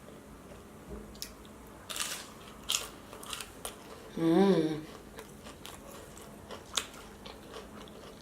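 A person biting and chewing crunchy oven-baked food close to the microphone, with scattered crisp crunches and mouth clicks. About four seconds in there is a short hummed "mm".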